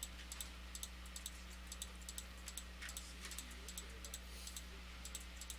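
Scattered light clicks of a computer mouse and keyboard, irregular, a few a second, over a low steady electrical hum.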